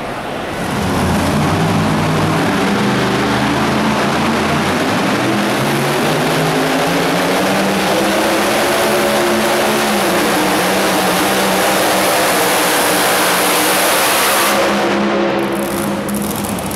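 Supercharged engine of a super modified 2WD pulling truck running loud and steady at high revs under load as it drags the weight sled. The sound drops away a little near the end.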